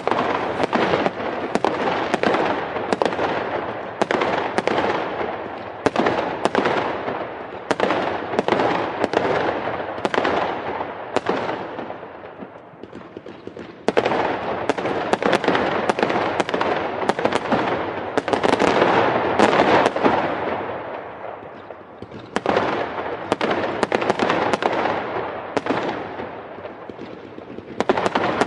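Fireworks going off in rapid volleys of sharp cracks and crackling, many reports a second. The barrage comes in waves, dying down briefly three times before picking up again.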